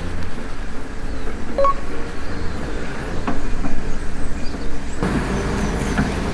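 Wind rumbling on the microphone outdoors, with the tent's fabric rustling as it is handled and adjusted.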